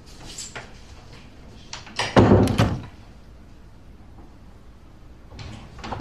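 A bathroom door: one loud thud of the door about two seconds in, and a softer door sound near the end.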